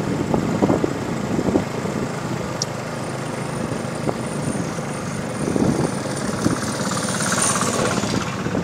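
Strong wind buffeting the microphone of a moving vehicle, with a motorcycle engine running beneath it.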